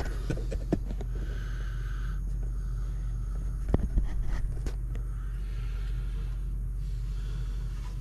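A clear plastic coffee-maker water reservoir being handled at a kitchen sink, knocking a few times, loudest just under four seconds in, over a steady low hum.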